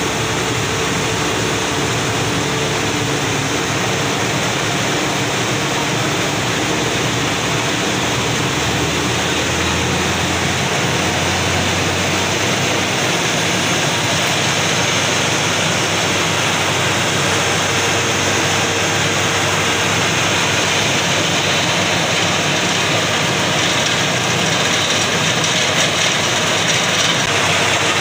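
Borewell drilling machine running steadily: a loud, constant mechanical noise with a rushing hiss.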